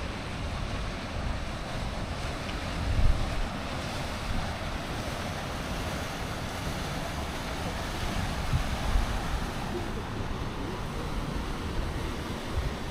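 Wind buffeting the microphone in low rumbling gusts, strongest about three seconds in, over a steady outdoor hiss.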